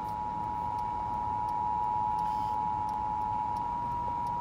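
Emergency Alert System attention signal coming from a car radio: a steady two-note electronic tone announcing a National Weather Service flash flood warning.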